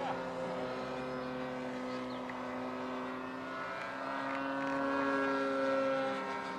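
Engine of a radio-controlled model aeroplane running in flight at a steady pitch, growing louder about five to six seconds in.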